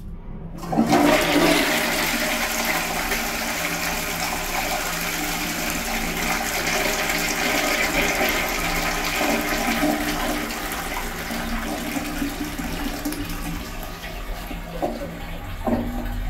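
A 1970s Armitage Shanks toilet with a low-level cistern being flushed. Under a second in, water rushes loudly into the pan and swirls down, easing off toward the end.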